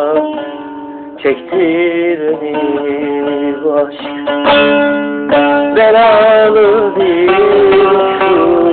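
Instrumental passage of a Turkish pop song: a plucked string instrument plays a sliding, ornamented melody over a sustained accompaniment.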